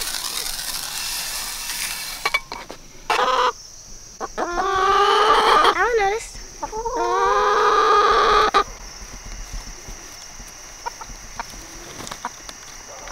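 Chicken feed hissing as it pours along a split-PVC-pipe trough feeder for about two seconds. Then a rooster crows in three drawn-out calls between about three and eight and a half seconds in. Faint ticks of chickens pecking feed from the trough follow near the end.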